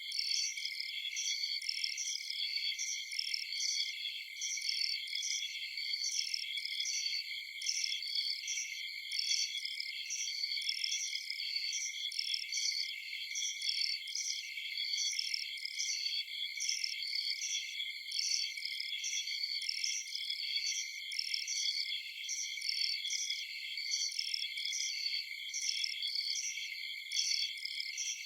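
Night chorus of crickets and other insects: steady high trilling with an evenly repeating, pulsed chirping layered above it.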